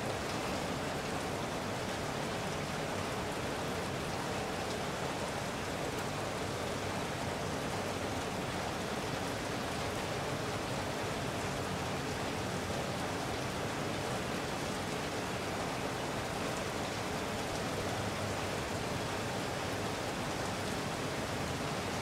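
Moderate rain falling steadily, an even hiss of many drops that doesn't change in strength.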